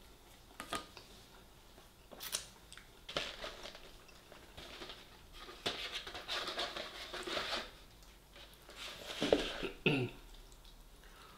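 A person eating close to the microphone: a few sharp mouth clicks and smacks, then a stretch of chewing, and a short throaty vocal sound that falls in pitch near the end.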